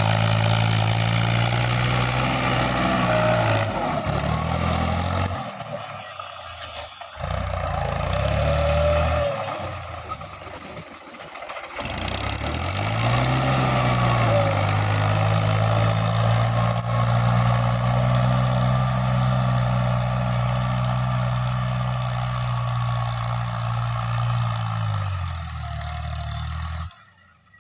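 Tractor diesel engine running under load, its revs falling away about four seconds in, then picking up again near thirteen seconds and holding steady, before dropping once more and cutting off abruptly near the end.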